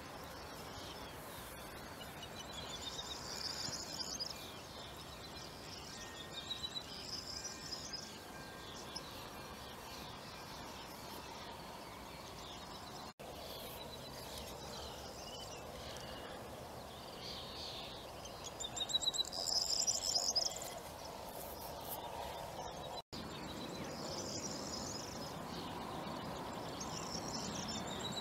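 Outdoor meadow ambience: songbirds singing short, repeated chirping phrases over a steady background of insect chirring, the loudest bird phrases about two-thirds of the way through.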